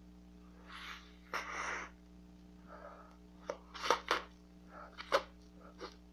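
Two breathy rushes of air through the lips, then about half a dozen sharp, wet mouth clicks and smacks from a mouth working a wad of bubble gum.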